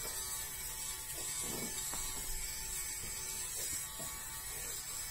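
Dafko electric fabric shaver (lint remover) running steadily with a high whine, shaving pilled lint off a fabric sofa.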